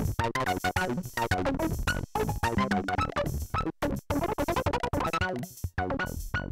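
Polivoks analog synthesizer playing a fast run of pitched notes while its panel knobs are turned, with brief breaks in the sound about two, four and six seconds in.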